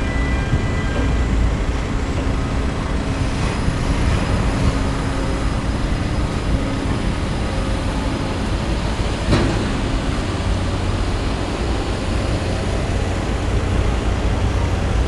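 Steady low rumble with a rushing noise over it, and a single sharp click about nine seconds in.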